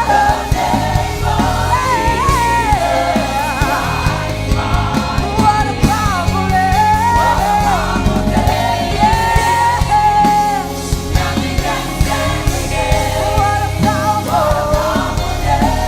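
Live worship band playing, with a singer's voice gliding between and holding notes over steady bass and drum hits.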